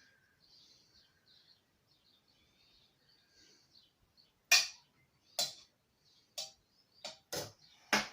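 About six sharp knocks of a knife striking a chopping board while cutting pastry-wrapped sausage rolls. The knocks start about halfway through, first about a second apart and then closer together.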